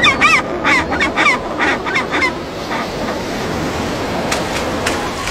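Penguins squawking and honking: a quick run of short calls over the first two seconds or so, then a steady noisy wash with a couple of sharp clicks near the end.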